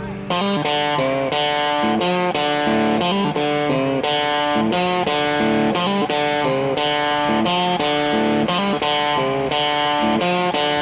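Background music: an instrumental led by guitar, with a quick run of plucked notes.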